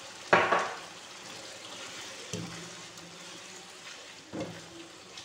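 Chicken and vegetables sizzling in a non-stick wok as they are stir-fried with a wooden spatula. A loud scrape about a third of a second in, then softer knocks of the spatula against the pan about two and four seconds in.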